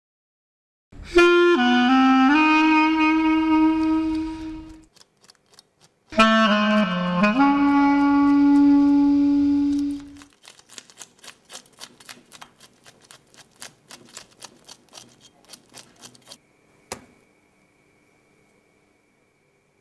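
Saxophone music: two long phrases, each starting with notes that bend downward and then settling on a held low note, with a short gap between them. Then a fast, uneven run of dry clicks for about six seconds, one sharper click, and a faint steady high tone.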